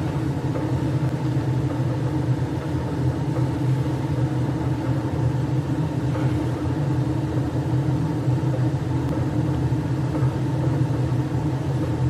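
Weil-McLain gas-fired hot water boiler running at high fire: a steady rumble with a low hum.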